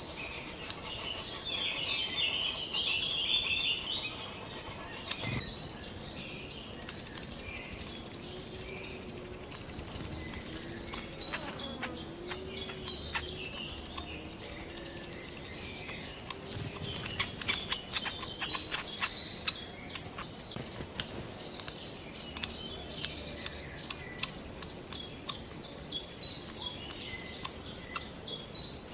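Small songbirds chirping: many quick high chirps in runs, over a steady high-pitched trill, with a few sharp clicks near the middle.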